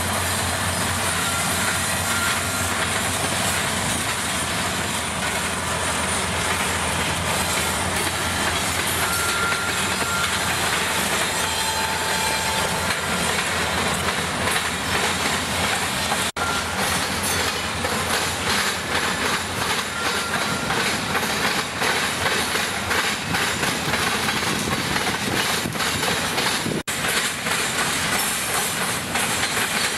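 Canadian National freight train passing close by: the trailing diesel locomotive goes by, then a long string of freight cars rolls past with a steady clickety-clack of wheels over rail joints. A few short, thin wheel squeals come through in the first half.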